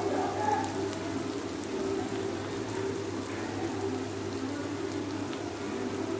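Sliced onions frying in hot oil in an aluminium kadai, a steady sizzle with a few faint pops. The onions are still partly raw and not yet browned.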